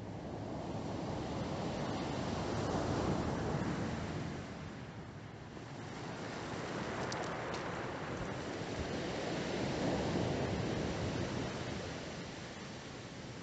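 Sea waves washing onto the shore, two swells of surf building and falling away, the first cresting about three seconds in and the second near ten seconds.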